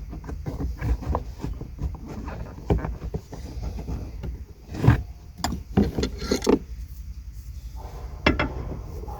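Small screwdriver prying and scraping at a plastic push pin in car trim, with irregular clicks and knocks of metal on plastic; the sharpest knock comes about five seconds in and a quick cluster follows about a second later.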